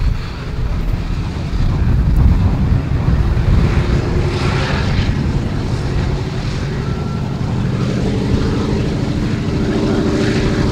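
A B-17 Flying Fortress's four Wright Cyclone nine-cylinder radial engines running as it taxis past at close range. It is a deep, steady propeller rumble that grows louder about two seconds in.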